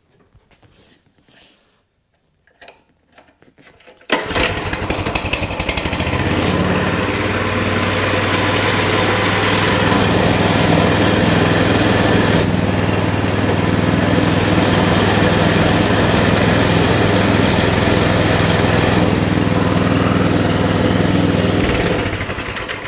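Coleman mini bike's single-cylinder four-stroke engine, pull-started about four seconds in, catching at once and running steadily at a fast idle until it is shut off near the end. The idle is too high, so the centrifugal clutch stays engaged and the chain drives the rear wheel round.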